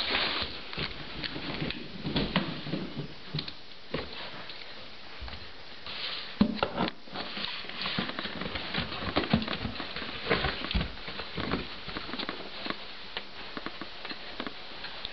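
Old English Sheepdog sniffing and pawing at a cardboard box, with an irregular run of scratches, taps and scrapes on the cardboard.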